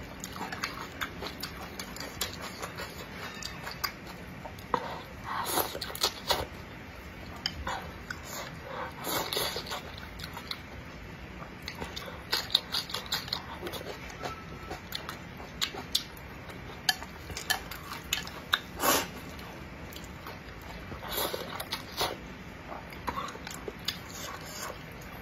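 Close-miked eating sounds: noodles being slurped, bitten and chewed in irregular bursts, with occasional clicks of chopsticks against the bowl.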